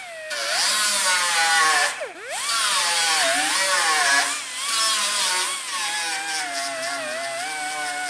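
Power grinder grinding the cut-off stub of a welded dent-pulling stud flush on a sheet-metal trunk lid. It makes a whine over a metallic grinding hiss; the whine wavers as it is pressed on and sags sharply in pitch about two seconds in before picking back up.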